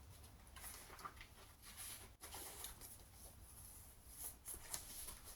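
Faint rustling and light handling noises of a vinyl record and its paper or card sleeve being moved about, in short irregular scuffs.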